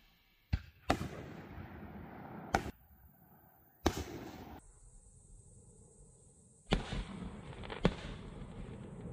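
Aerial fireworks bursting: about six sharp bangs at uneven intervals, each followed by a fading hiss.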